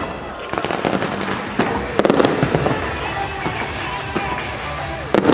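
Fireworks display: shells bursting with a dense crackle, and two sharp loud bangs about two seconds in and near the end, over music playing along with the show.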